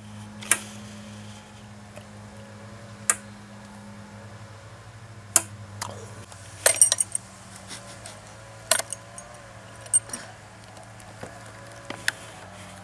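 Fuel tap (petcock) of a Simson SR50 scooter being turned by hand, clicking through its positions: sharp metallic clicks every second or two, with a quick run of clicks about seven seconds in, over a low steady hum.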